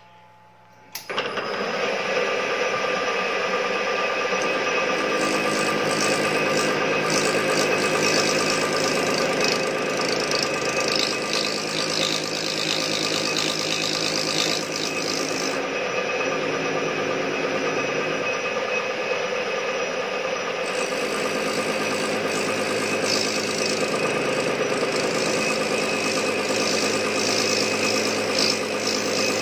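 Metal lathe starting up about a second in and running steadily with a whine of several fixed tones as it turns down a brass hex piece. A scratchy cutting noise from the tool rides over the motor during two long stretches, in the middle and again toward the end.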